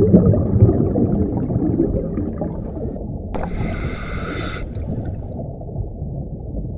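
Scuba diver breathing through a regulator underwater, heard through the camera housing: a low, muffled rumble and gurgle of exhaled bubbles, fading after the first couple of seconds, then a hiss of one inhalation about three seconds in, lasting about a second.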